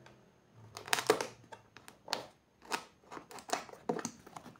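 Keyboard box packaging being opened by hand: a quiet start, then a run of irregular crackles, rustles and light clicks of cardboard and plastic wrapping, loudest about a second in.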